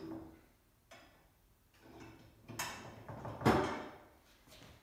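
Metal wheelbarrow frame tubes being handled and fitted together on a wooden tabletop: a few knocks and clatters, the loudest a little past halfway.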